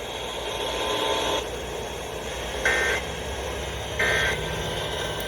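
Short bursts of two-tone EAS SAME data signal from a weather radio, about a second apart over steady radio hiss. Two bursts are heard and a third begins at the very end. The bursts are short, as in the end-of-message code.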